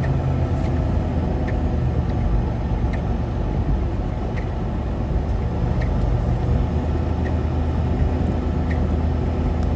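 Semi-truck diesel engine idling steadily, a low even hum, with a faint tick repeating about every one and a half seconds.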